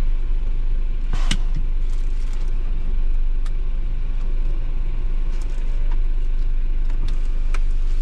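Diesel engine of a Mitsubishi Fuso Super Great heavy truck idling steadily with a low rumble, heard from inside the stationary cab. There is a sharp click about a second in and a few lighter clicks near the end.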